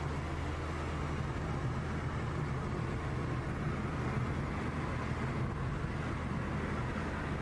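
Steady engine drone and tyre-on-road noise of a car driving at cruising speed, heard from inside the cabin.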